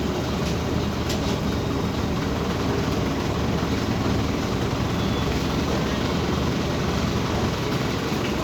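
Scania OmniCity city bus driving along at a steady pace: constant engine and rolling noise.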